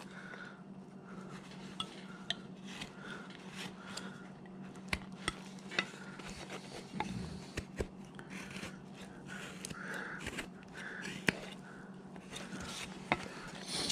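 Hand woodcarving gouge cutting into a wooden block: quiet slicing scrapes with scattered short, sharp clicks as the blade bites and chips come away.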